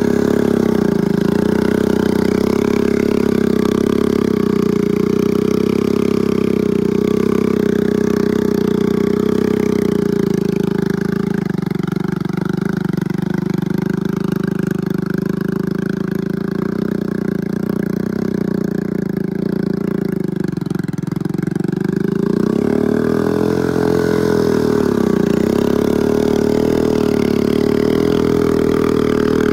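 Small Honda step-through motorcycle's single-cylinder engine running steadily as it is ridden through mud, the revs dropping and climbing back up about 23 seconds in.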